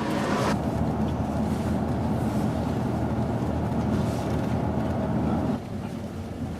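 Tour coach running at speed: steady low engine and road drone heard from inside the cabin, dropping in level about five and a half seconds in.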